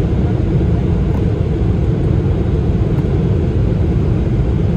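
Steady cabin roar of a Boeing 777-300ER on approach, heard inside the cabin by the wing: GE90 turbofan and airflow noise, a constant deep rumble.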